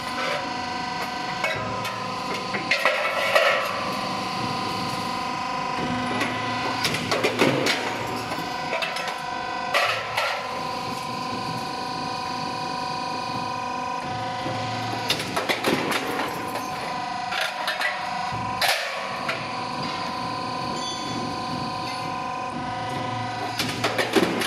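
Metal floor decking roll forming machine running with a steady whine, with clanks of formed sheet-metal decking at irregular intervals, several seconds apart.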